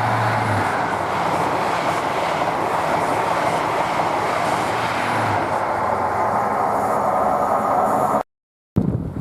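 Train passing close by on the main line: a steady loud rush of wheels on rail. It cuts off suddenly about eight seconds in, then comes back quieter.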